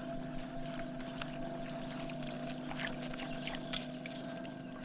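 A boat motor hums steadily under light water sounds, with scattered small splashes and clicks in the second half.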